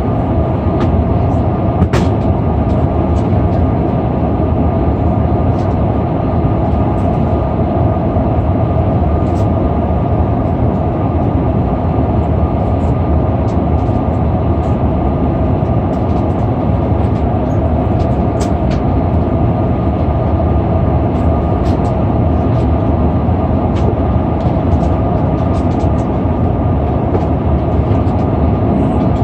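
Steady cabin noise inside an Airbus A340-600 airliner in flight: a loud even rumble of airflow and engines with a steady hum, and a few faint ticks.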